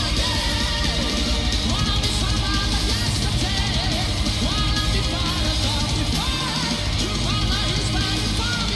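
Live heavy metal band playing: a male singer over distorted electric guitars and drums.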